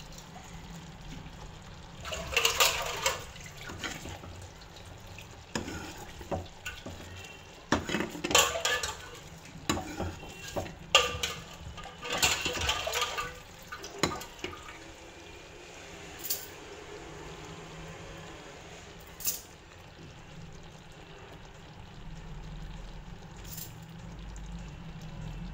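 Steel ladle stirring and clinking against a kadhai of sugar syrup bubbling at the boil, in several spells of clatter with single sharp clinks in between. The syrup is being tested for one-string consistency.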